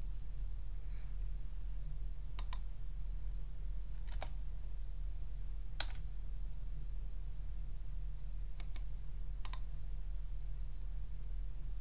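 About seven scattered clicks of a computer keyboard, some in quick pairs, over a steady low electrical hum and a faint high whine.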